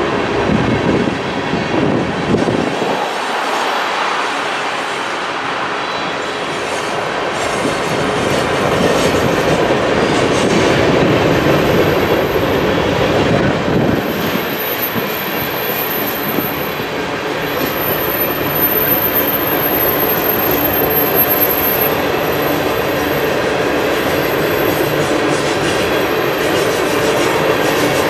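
Freight train tank cars rolling past on steel wheels along the rails: a steady rumble that swells and eases slightly as the cars go by, with faint wheel clicks near the end.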